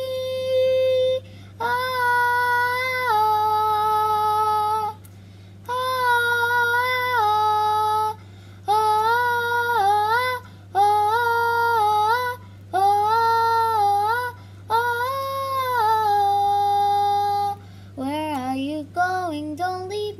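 A girl singing solo, a wordless "ah" vocalise in long held notes that slide up and down between pitches, phrase after phrase with short breaks for breath. The notes move more quickly near the end. A steady low hum sits underneath.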